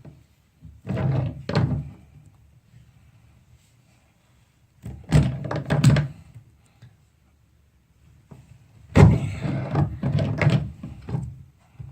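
Channel-lock pliers and a drain extractor clunking and scraping in a bathtub drain, in three bouts of knocks, as the corroded drain is wrenched loose.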